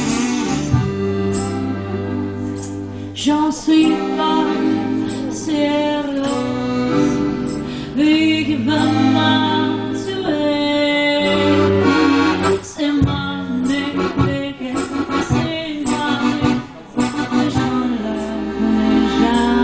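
Accordion playing a tune with sustained bass and chords, accompanying a woman singing into a microphone, with a brief pause about three-quarters of the way through.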